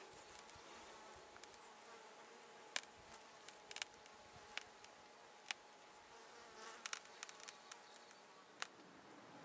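Faint buzzing of a flying insect, with a scatter of sharp clicks from time to time.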